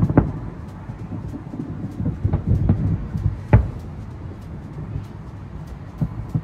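Distant fireworks bursting: a run of low booms over a steady rumble, the loudest about three and a half seconds in.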